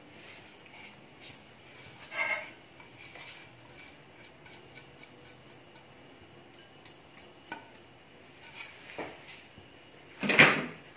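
Spices tipped from a plate into a glass bowl of grated radish, the plate clinking and tapping against the bowl's rim now and then, with a louder knock near the end.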